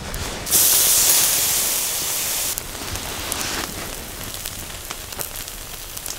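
A loud sizzling hiss of food searing on a hot charcoal grill starts suddenly about half a second in and cuts off after about two seconds. A quieter hiss follows for about another second, then faint crackling.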